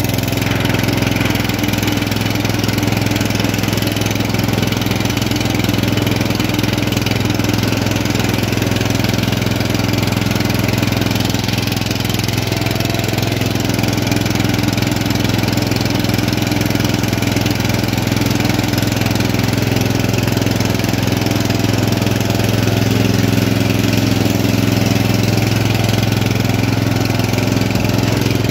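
Sentinel lawn tractor's 17 hp Briggs & Stratton engine running steadily, heard from the driver's seat.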